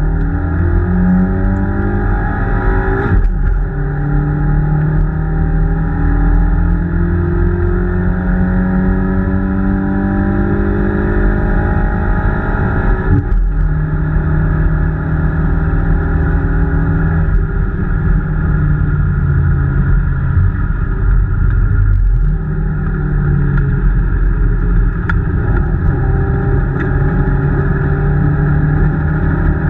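Peugeot 205 rally car's four-cylinder engine heard from inside the cabin, driven hard on track. The pitch climbs under acceleration and drops sharply at each of several gear changes.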